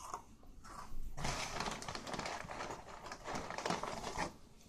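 A crinkly plastic bag of pita chips being handled: a dense crackling rustle that starts about a second in and lasts about three seconds.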